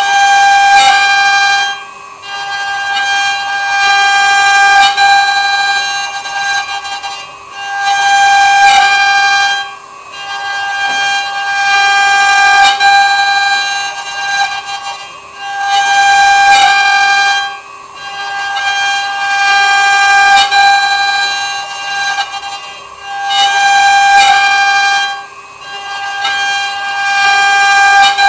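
CNC wood router spindle whining at one steady high pitch while cutting. The whine swells and dips in loudness every few seconds.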